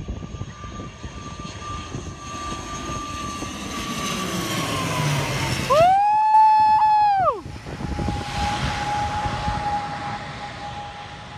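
Twin-turboprop airliner flying low overhead on approach to land, its propeller and engine drone holding a steady tone that slides lower in pitch as it passes. About six seconds in, a loud tone swoops up, holds for over a second and drops away, after which a lower steady drone continues.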